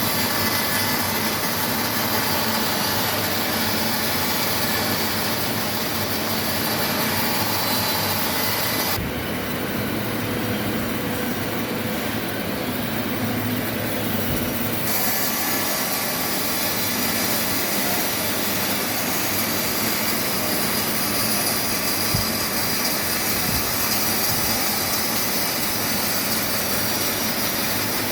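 Large sawmill saw running through a giant log: a loud, steady machine noise. Its upper range dulls abruptly about nine seconds in and comes back about six seconds later.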